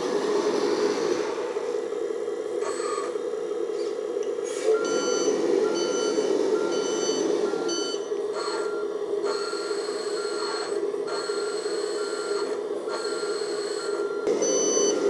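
RC dump truck's sound module playing a steady simulated diesel engine running, joined about five seconds in by its electronic reverse alarm beeping about twice a second as the truck backs up.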